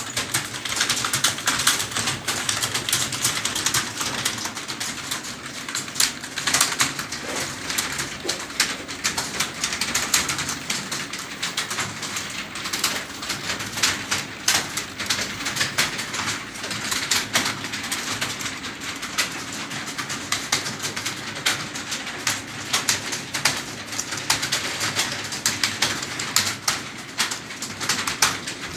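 Computer keyboard typed on quickly and continuously, a dense irregular patter of key clicks.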